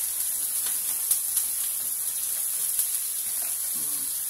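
Food frying in a pan, a steady high sizzle, with a few faint light clicks from kitchen handling.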